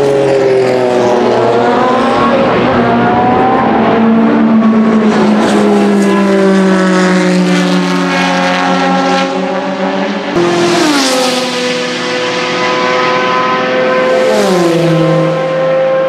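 Jaguar XJR Group C race cars' 7-litre naturally aspirated V12 engines running hard at speed, the note sinking slowly at first. After about ten seconds a higher, louder note rises quickly as a car comes close, then drops sharply in pitch about a second and a half before the end.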